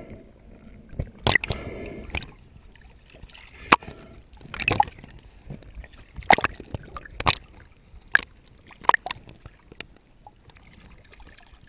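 Water sloshing and gurgling, broken by about a dozen sharp, irregularly spaced knocks and clatters.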